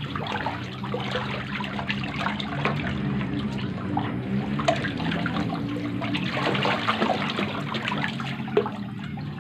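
Water trickling and splashing in a shallow catfish tank, with a steady low hum underneath.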